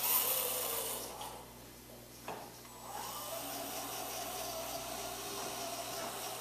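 Small electric drive motors of a student-built robot vehicle whirring as it drives across the floor, a steady whine that dips for a second or so partway through, with a single click.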